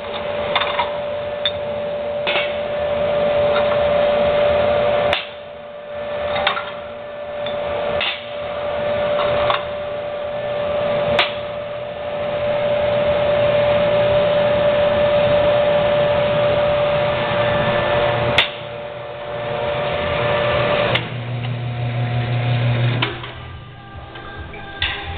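Stainless-steel bottle washing machine running: a steady pump hum under a loud wash of spraying water, with a few sharp knocks. The hum stops about three-quarters of the way through.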